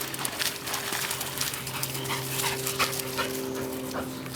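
Labrador retrievers whimpering and yipping excitedly in play, a quick run of short, sharp cries.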